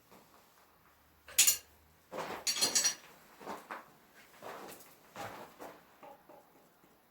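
Metal objects being handled, clinking and clattering: a sharp knock about a second and a half in, a louder run of clatter a little after, then several softer knocks.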